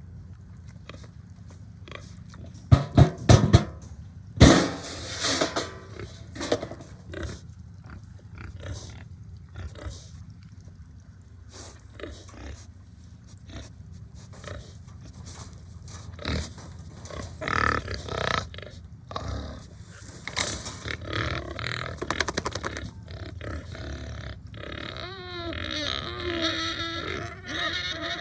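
Hungry Duroc pigs grunting and squealing in scattered bursts. The pitched, wavering squeals come near the end. A quick run of sharp knocks about three seconds in is the loudest thing.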